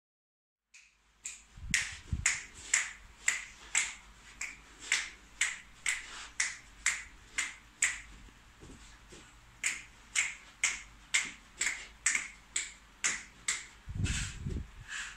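Fingers snapping in a steady rhythm, about two snaps a second, with the snaps growing faint for a moment around halfway. A few low thuds come near the start and near the end.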